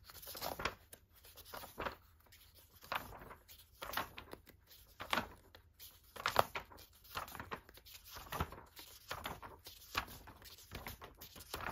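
Pages of a glossy magazine being turned one after another, each turn a short papery swish, coming every half second to a second.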